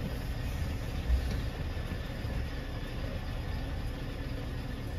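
Lorry's diesel engine running with a steady low rumble, heard from inside the cab, with one short low thump about a second in.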